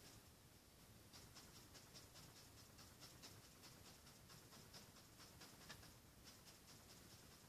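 Faint dabbing of a paintbrush on a canvas: soft, scratchy taps, a few each second, in an irregular rhythm.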